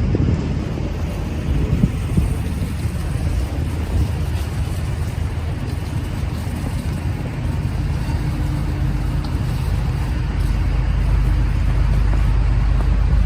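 City street traffic: a steady low rumble of vehicles, with a faint steady hum in the middle.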